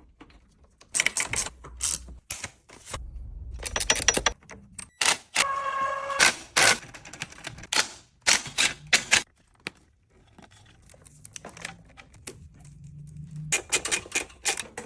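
Rapid clicking, rattling and knocking of hand work on a newly unboxed electric bike, with a short squeaky rasp in the middle.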